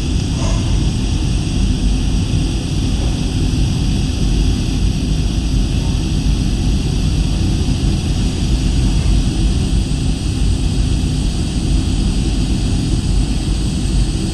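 Steady, unchanging machine rumble with a high hiss over it, holding at the same level throughout.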